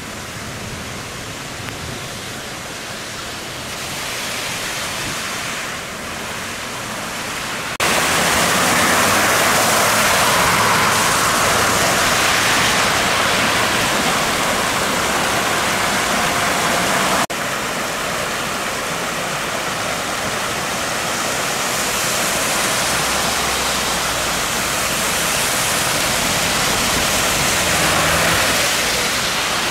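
Steady rushing of flash-flood water. About eight seconds in it turns suddenly louder as brown floodwater churns over rocks, and from about seventeen seconds on it is water rushing across a flooded road with cars driving through it and throwing up spray.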